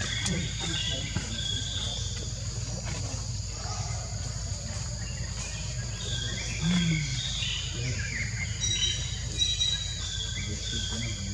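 Outdoor ambience: birds chirping in short, repeated high notes over a steady high insect drone and a constant low rumble.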